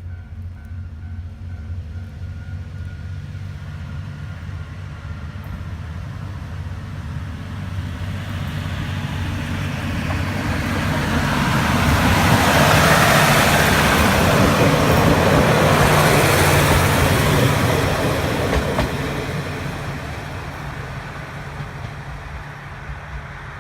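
KiHa 40 series diesel railcar approaching, passing close by and pulling away. Its engine drones steadily underneath, and the running noise swells to a peak about halfway through, then fades.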